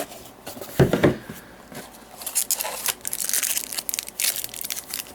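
Plastic wrapping crinkling and tearing as a cardboard trading-card Fat Pack box is opened, with a dull thump about a second in and then a steady run of crackling.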